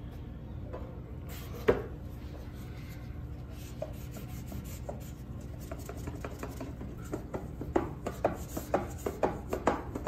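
Pane of picture-frame glass being wiped clean by hand: rubbing strokes on the glass that grow quicker and busier over the last few seconds, with one sharp tap about two seconds in.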